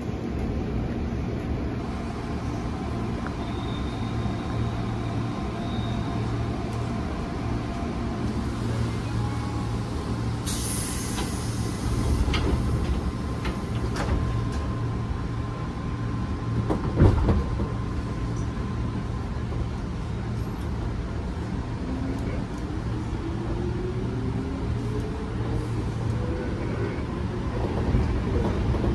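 Onboard running sound of a JR 205 series 3100 subseries electric train: a steady low rumble with a constant tone. A burst of hiss starts about ten seconds in, a loud knock comes about seventeen seconds in, and a whine rises in pitch in the second half.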